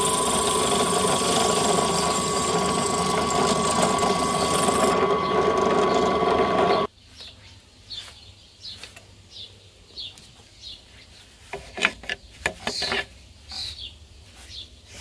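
Electric drill running steadily as a twist bit cuts into a steel bar held in a vise, with a constant tone over the motor noise. It cuts off abruptly about seven seconds in. After that, a brush sweeps metal swarf off the vise jaws with light scratching and a few clicks.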